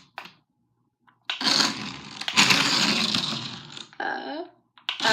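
Small electric motor and gears of a cheap toy remote-control car whirring as it drives. It starts about a second in and runs in two spells, a short one and then a longer one of about two seconds.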